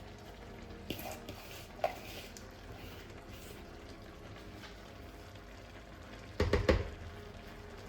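Kitchen cookware and utensils being handled during cooking: a couple of light clicks early on, then a short clatter of several knocks near the end, over a faint steady hiss of cooking.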